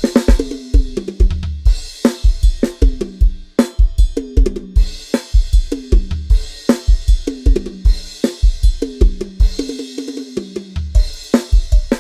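Addictive Drums 2 virtual drum kit playing a busy groove: kick drum, snare and hi-hat, with repeated tom fills that step down in pitch and cymbal crashes every second or two.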